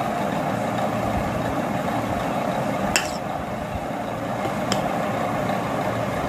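Steady background hum with a sharp clink about three seconds in and a lighter one near five seconds: a steel spoon knocking against a ceramic bowl as flour is spooned in.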